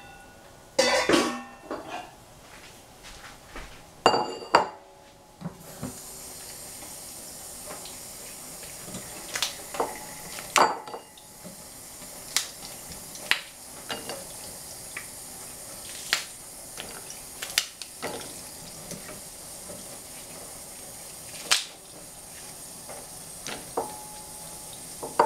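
Green bean pods clicking into a ceramic bowl one at a time, every second or two, with a few louder knocks in the first few seconds. A steady hiss starts about six seconds in and runs underneath.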